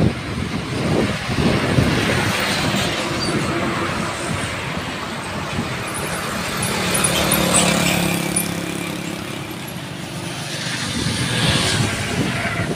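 Road traffic passing on a highway: vehicles drive by one after another, the noise swelling and fading with each pass. In the middle a light truck goes by with its engine running steadily.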